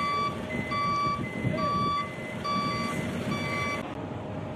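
Electronic warning beeper, like a vehicle backup alarm, giving about five short steady-pitched beeps roughly one a second, then stopping shortly before the end, over a steady low rumble of machinery.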